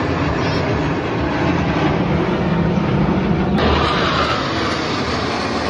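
Jet engine noise from a formation of fighter jets flying over: a loud, steady rumbling roar. It changes abruptly a little past halfway through.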